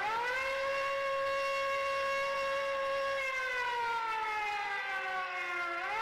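Air-raid siren wailing. Its pitch rises, holds steady for a few seconds, slowly falls, then rises again near the end.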